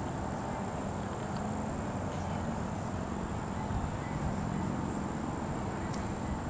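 Steady outdoor background noise: a low rumble under a faint, even high-pitched hiss, with a few soft clicks.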